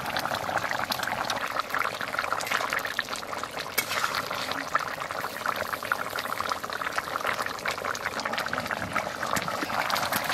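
Fish curry boiling in a steel wok over a wood fire: a steady, dense bubbling with many small pops.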